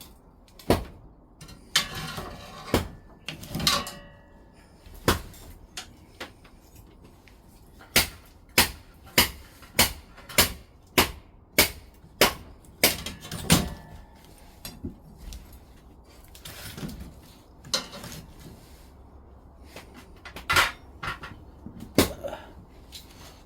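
Firewood being chopped: sharp wooden knocks, including a run of about ten evenly spaced strikes in the middle, with scattered knocks and some rustling of wood before and after.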